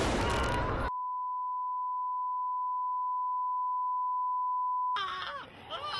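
A loud burst of noise cuts off abruptly about a second in, and a steady, pure test-card beep tone takes over for about four seconds, the censor tone over colour bars marking a removed violent scene.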